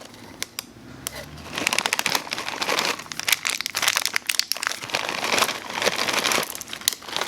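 A bag of chocolate chips crinkling as chips are sprinkled out over cake batter, a dense crackle of small clicks starting about a second and a half in.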